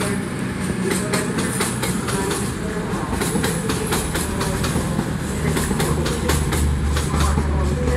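CrossCountry Voyager diesel multiple unit running past along the platform. Its underfloor diesel engines make a steady low drone that grows louder near the end, and the wheels make repeated irregular clicks over rail joints and pointwork.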